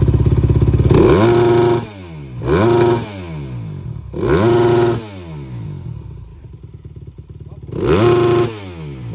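Dirt bike engine held at steady revs, then blipped four times in short rising revs, dropping back to idle between each.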